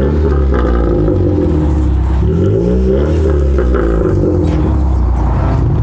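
Car engine revving hard, its pitch climbing near the start and again about two seconds in.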